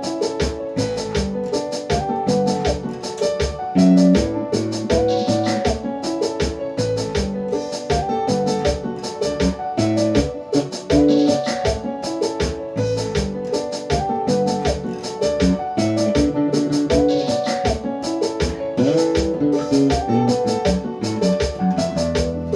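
Band music driven by a booming electric bass guitar line, with keyboard chords and a steady drum beat.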